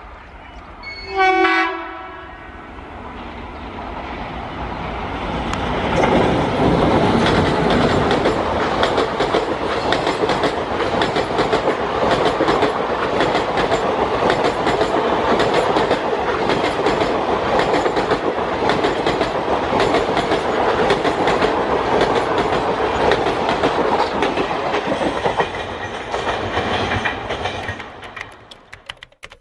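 A diesel locomotive sounds one short horn blast about a second in, then an express passenger train approaches and passes at speed, its coach wheels clattering rhythmically over the rail joints. The noise builds over a few seconds, stays loud while the coaches go by, and fades out near the end.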